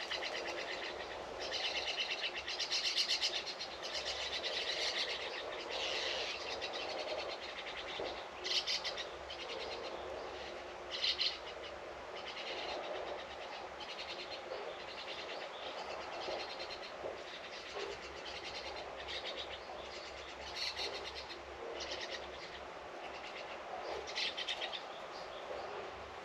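Birds singing and chirping outdoors: many short, repeated high calls, several overlapping, over a steady background hiss.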